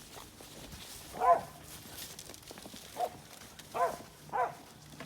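Working cow dog barking four times, short separate barks spread over a few seconds.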